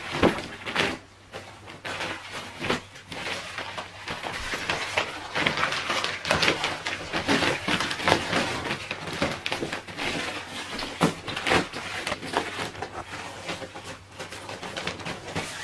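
Rustling and crinkling of a TPU-coated ripstop nylon camping mat being unrolled and unfolded by hand, a stream of irregular swishes and crinkles.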